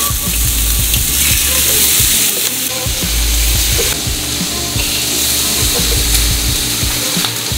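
Oxtail pieces browning in a hot wok, sizzling with a steady frying hiss.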